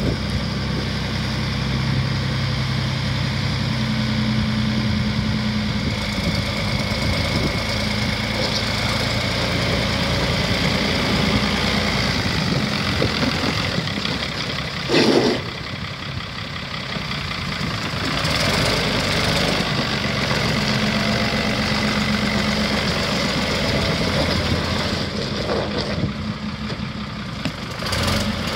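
1996 Fiat F140 4WD tractor's diesel engine running steadily, its note swelling now and then as it is driven. A short, loud noise cuts across it about halfway through.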